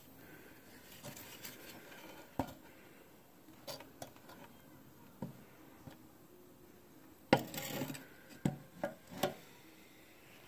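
A few light knocks and clattering handling noises, the loudest a sharp knock about seven seconds in, followed quickly by three smaller ones.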